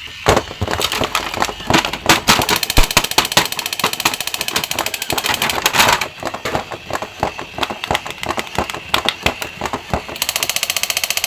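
Battery-operated crawling soldier action figure running: dense, rapid clicking and clattering from its plastic mechanism, turning into a fast, even rattle near the end.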